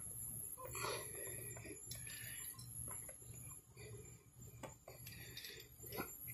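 Ratchet and socket clicking irregularly, about once a second, with a few short metallic scrapes, as the engine's crankshaft is turned slowly by hand at the pulley bolt to bring a cylinder up on its compression stroke.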